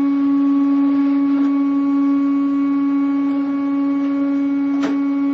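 Zebra ZXP Series 8 card printer running its heated-roller cleaning cycle with an adhesive cleaning card fed through. It gives a loud, steady hum on one pitch with overtones, and there is a sharp click near the end.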